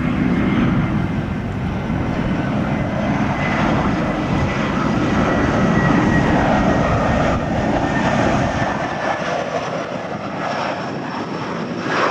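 Airbus A320-family jet airliner on landing approach with its landing gear down, its twin turbofan engines making a steady rumble with a high whine that falls slowly in pitch as it passes. The low rumble thins out near the end.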